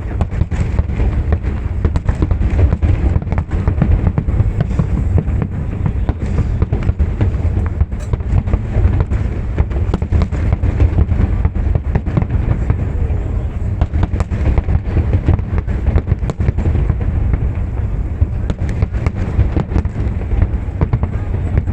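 Aerial fireworks display in a continuous barrage of deep booms overlapping one another, with sharp crackles throughout.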